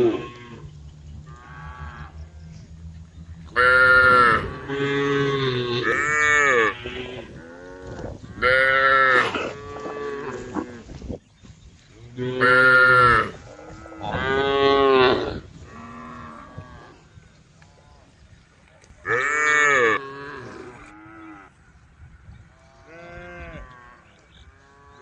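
Several cows mooing to one another, a run of loud drawn-out moos a second or so each, some overlapping, with fainter moos from farther cows in between. There is a lull in the loud calls in the middle of the stretch, before one more loud moo.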